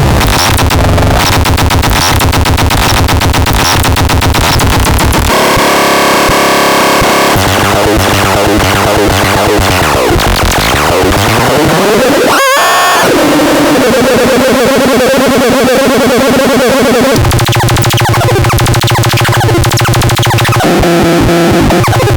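Harsh, noisy electronic synthesizer sounds: dense buzzing tones and textures that change every few seconds, with a pitch sweep about halfway through.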